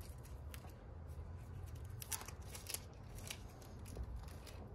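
Handling a new roll of EVA handlebar tape: a few soft rustles and light clicks as the tape is turned over and unrolled, over a low steady rumble.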